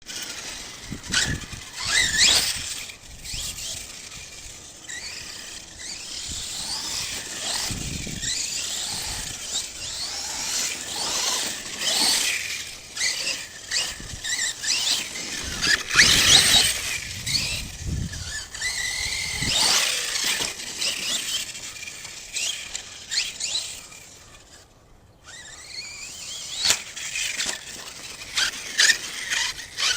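ARRMA Kraton 6S RC truck's brushless electric motor whining, its pitch rising and falling as the throttle is worked, with repeated sharp knocks and thuds from the truck on the dirt. The sound drops away briefly a few seconds before the end, then the whine returns.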